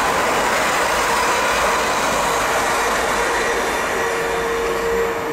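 Electric passenger train running past: a loud, steady rush of wheel and rail noise, with a steady whine joining about four seconds in.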